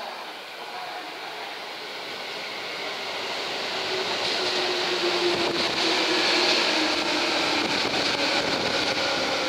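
Tobu 10030-series electric commuter train pulling into a station, its wheels running on the rails and growing louder as the cars pass close by. A steady whine comes from it through the middle of the passage.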